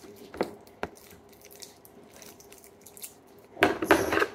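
Small plastic slime tub being handled and opened: a couple of light clicks, then a loud plastic rustle lasting under a second near the end.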